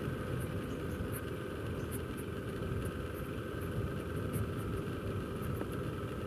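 Yamaha NMAX 155 scooter's single-cylinder engine running steadily while riding, with an even low rumble and a faint steady whine.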